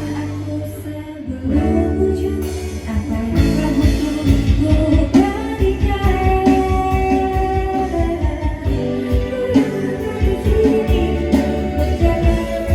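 Background music: a song with singing over guitar accompaniment.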